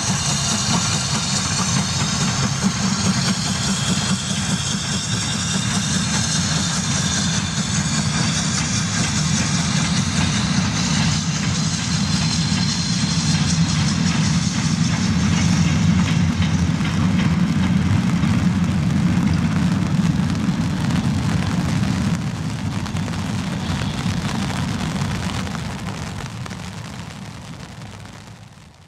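Steam locomotive working a goods train past, its exhaust and the rumble of the passing wagons steady and loud, then fading away over the last few seconds.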